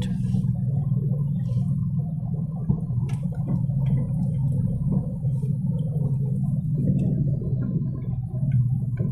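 Steady low rumble of a car driving, heard inside the cabin, with a few faint small clicks.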